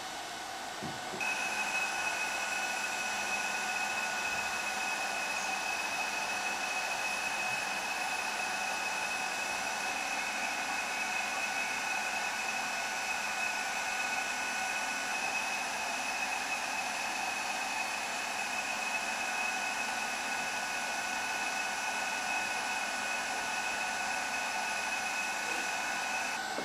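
Hydraulic pump of a JX F1650 RC truck crane running with a steady whine over a hiss as the telescopic boom sections extend. It starts about a second in.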